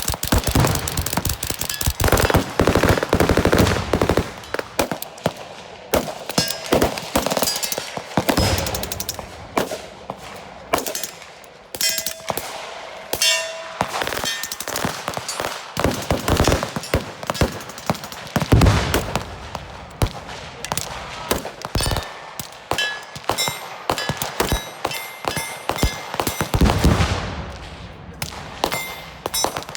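Rifles fired in rapid succession during a mad-minute rapid-fire drill: sharp shots follow one another several times a second, often overlapping.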